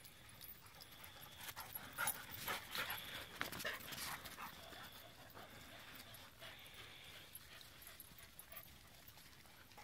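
Dogs playing, with a cluster of short, sharp dog barks and yips in the first half that then die down.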